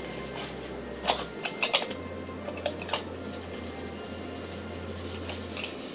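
Metal screw lid being twisted tight on a glass jar, giving a few scattered clicks and scrapes of metal on glass, most of them in the first half.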